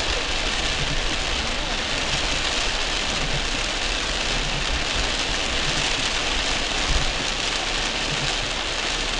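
Heavy rain drumming steadily on a car's roof and windshield, heard from inside the car, over the low rumble of the car driving on a wet road. A single dull thump about seven seconds in.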